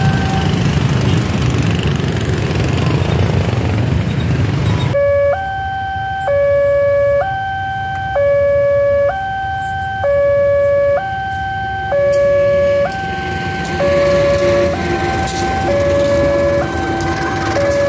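Railroad crossing alarm sounding its electronic two-tone warning, alternating a lower and a higher note about once a second while the barrier is down for an approaching train. For the first five seconds a loud rushing noise covers it, then cuts off suddenly. A faint low hum and rising noise join in the last few seconds as the diesel locomotive nears the crossing.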